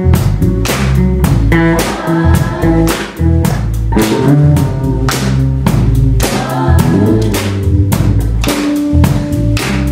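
Live rock band playing: electric guitar, bass and drum kit keeping a steady beat, with voices singing.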